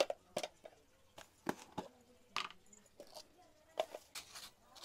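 Spoon clicking and scraping against a clear plastic container while scooping out powdered seasoning, a string of light, irregular taps.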